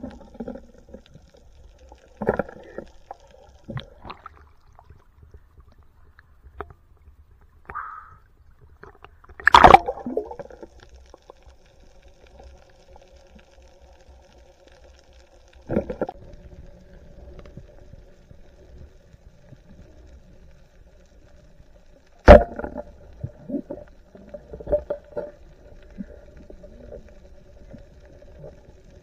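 Underwater sound of a night spearfishing dive, muffled water gurgling and rumbling with sharp knocks and bumps now and then, the loudest about ten seconds in and another about 22 seconds in. A faint steady hum runs under it from about ten seconds in.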